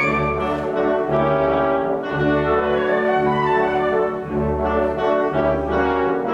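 Symphony orchestra playing holiday music, with the brass section prominent over the strings and a steady pulsing bass line.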